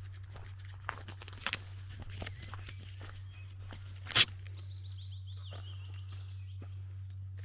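Footsteps crunching on a gravel track, with a sharp loud click about four seconds in. Just after it, a songbird's trill of quick repeated notes falls slowly in pitch for about two seconds, over a steady low hum.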